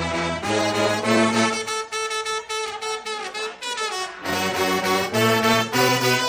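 Instrumental music: a melody of held notes over a low bass line, changing note every half second or so.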